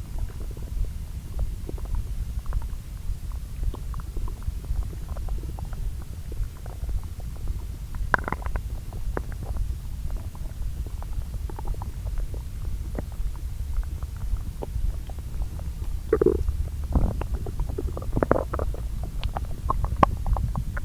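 Human lower-intestine sounds, two recordings layered together: a steady low rumble with scattered small gurgles and pops as the bowel churns digesting food. Louder gurgles come about eight seconds in and again near the end.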